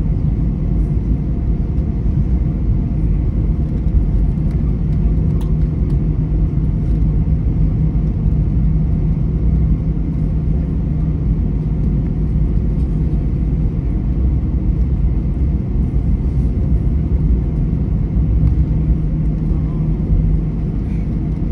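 Airbus A321 cabin noise while taxiing: the jet engines running at idle give a steady low rumble, with a steady low hum over it.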